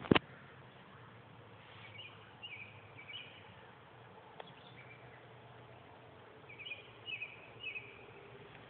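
A sharp knock right at the start, then quiet outdoor ambience with two runs of small bird chirps, three or four quick high notes each, about two seconds in and again about seven seconds in.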